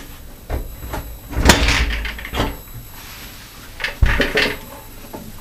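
Clunks and knocks as a water-filled steel panel radiator is lifted off its wall brackets, loudest between about one and a half and two and a half seconds in, then a low thud about four seconds in as it is set down onto wooden blocks.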